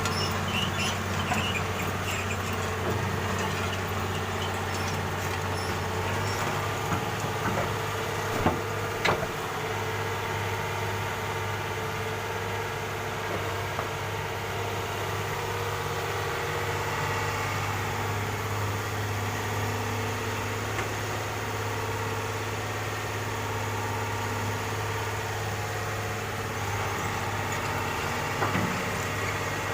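Excavator's diesel engine running steadily, with a few short knocks about eight to nine seconds in and again near the end.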